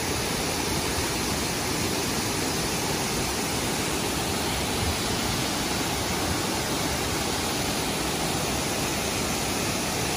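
A 40-foot waterfall pouring into its plunge pool: a steady, loud rush of falling water.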